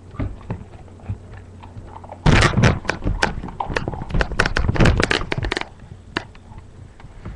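Knocks and scuffs right against the microphone as the camera is jostled and moved: a few light taps, then a dense flurry of loud knocks for about three seconds, tapering off to scattered ticks.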